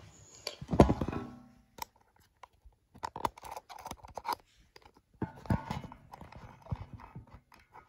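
Handling noise as the camera and the gas mask gear are moved about: a louder knock about a second in, then scattered clicks, knocks and rustles.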